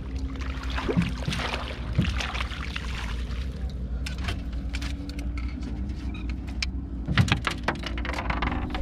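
A boat motor hums steadily, its pitch drifting a little near the end, with a few short knocks about one, two and seven seconds in.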